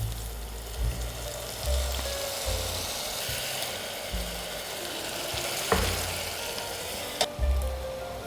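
Food sizzling in a hot pan while being stirred, the sizzle swelling in the middle, with two sharp utensil knocks about six and seven seconds in.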